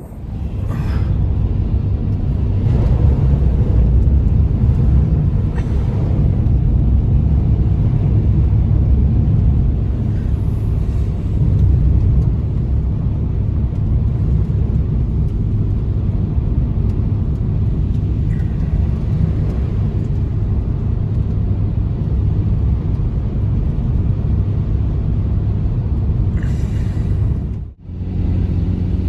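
Steady low rumble of a motor vehicle on the move, with a few faint knocks. The sound breaks off sharply near the end and resumes with a steadier hum.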